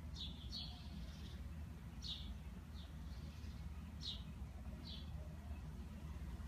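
A small bird's short, high, falling chirps, repeated roughly once a second, over a steady low rumble.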